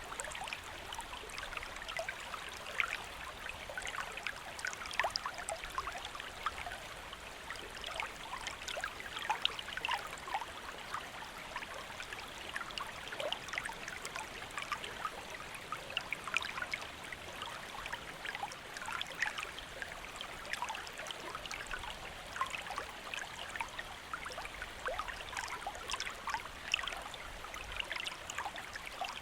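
A shallow stream or small river flowing steadily, with continuous babbling and many small trickling splashes.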